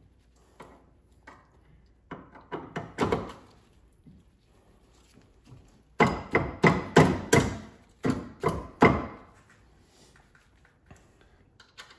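Sharp knocks and clicks of suspension parts being worked into place by hand: a few about two to three seconds in, then a quicker run of louder knocks, about four a second, from about six to nine seconds in.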